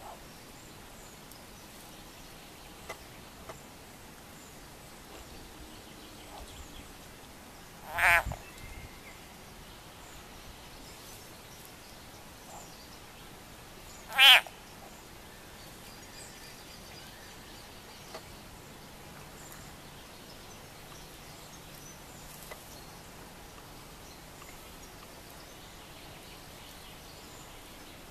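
A frog caught by grass snakes gives two short, wavering screams, about six seconds apart: the distress call of a frog seized by a predator.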